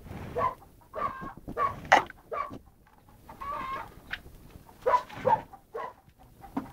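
Chickens clucking in short, irregular calls, with a sharp click about two seconds in.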